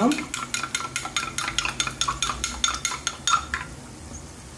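Two eggs being beaten with a wooden spoon in a ceramic bowl: quick, even taps of the spoon against the bowl, about five a second, stopping about three and a half seconds in.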